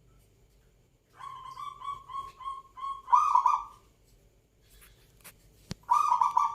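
Zebra dove (perkutut) cooing: a run of short, evenly spaced coos, then a louder rolling coo about three seconds in. After a pause, a sharp click and another loud rolling coo near the end.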